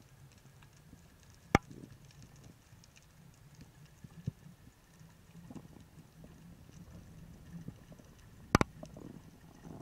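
Underwater sound heard through a diver's camera: a faint low rumble of water with a few sharp clicks, the loudest about one and a half seconds in and a double click near the end.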